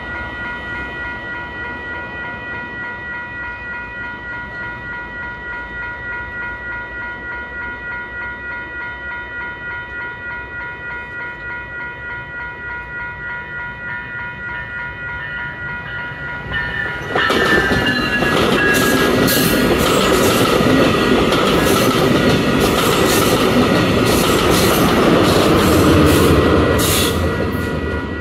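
Level-crossing electronic bells ringing steadily with an even pulse. About 17 seconds in, an approaching VIA Rail Siemens Venture passenger train sounds its horn, and its noise swells loudly as it nears the crossing.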